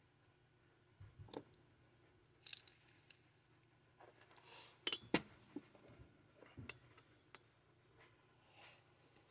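Loose steel bolts and small metal parts clinking against each other and the tabletop as they are picked up and handled: a dozen or so scattered light chinks, a couple with a short metallic ring.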